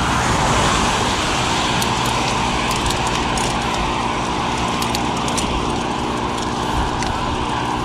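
Steady rushing noise of riding a mountain bike along a road: wind over the microphone and tyre noise, with light scattered ticks.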